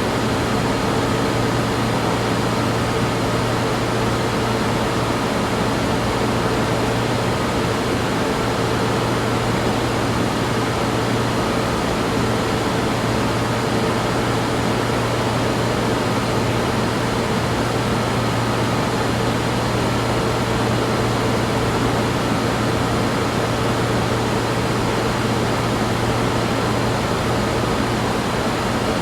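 Sci-fi laboratory ambience: a steady machine hum and hiss, with a low drone and a few higher constant tones held over it.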